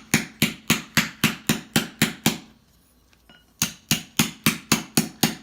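Hammer blows dishing a metal armour rondel into a shallow bowl shape, a steady run of sharp metal strikes about four a second. The blows stop for about a second midway, then resume at the same pace.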